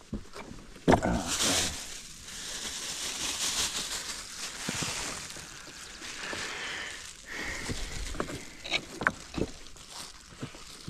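A thin plastic bag rustling and crinkling for several seconds after a sharp knock about a second in, then a few scattered knocks of boots stepping on loose riprap rocks near the end.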